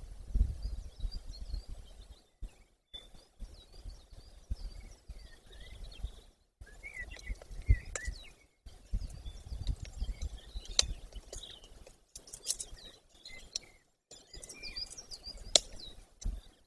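Outdoor ambience at a mountain nest: bird chirps and tweets come and go throughout over a low rumble, with a few sharp clicks. The sound cuts out completely for moments several times.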